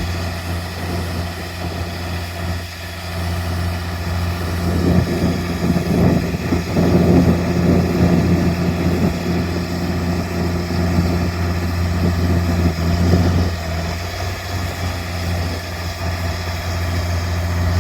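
Tractor engine running steadily while it drives the grain buggy's unloading auger, pouring corn into a truck. Gusts of wind buffet the microphone.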